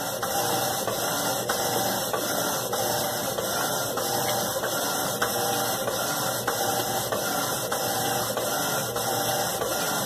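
Electrolux LTC10 top-loading washing machine in its wash cycle, the agitator churning a load of bed sheets at the high water level: a steady run of motor and sloshing water, with faint clicks every second or so.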